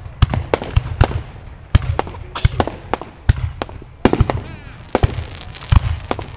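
Fireworks display of aerial shells bursting in quick succession: sharp bangs with deep booms underneath, about three a second.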